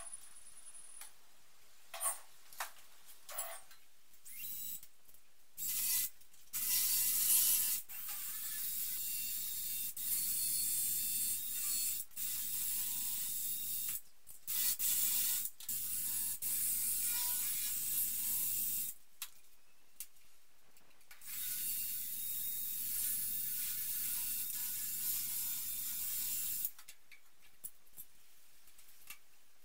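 Workshop tool noise: a mechanical, ratchet-like whirring that runs in long spells of several seconds, with short clicks and knocks between them.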